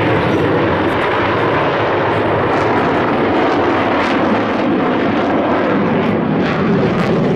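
Blue Angels F/A-18 Hornet jet engines, a loud, steady noise.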